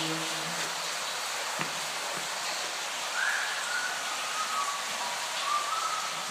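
Water falling as rain from overhead cloud props into a flooded floor, a steady splashing patter. A faint wavering high tone comes in during the second half.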